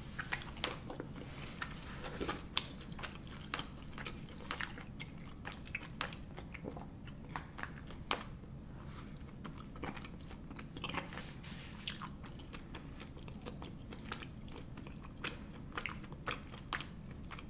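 Close-up chewing and mouth sounds of a person eating chewy Korean rice cakes (tteokbokki), heard as an uneven string of short clicks and smacks.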